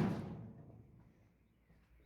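The fading ring of a hard blow on a metal tool box, dying away within about half a second.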